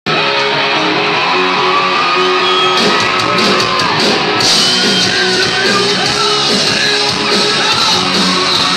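Live rock band playing loud in a large hall, with the crowd shouting along; a cymbal crash comes in about halfway through.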